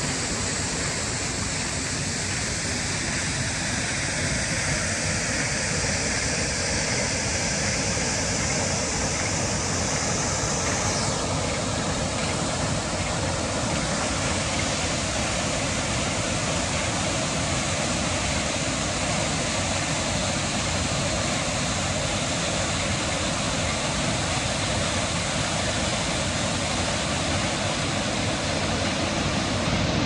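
Karute River rushing over rocks and its waterfall pouring into the pool below: a steady, full rush of water. The high hiss shifts about a third of the way in, and the sound grows slightly louder near the end.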